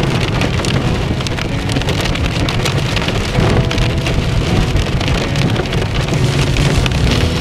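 Rain pattering steadily on a car's windshield and roof, heard from inside the cabin while driving, over a low rumble of the car and wet road.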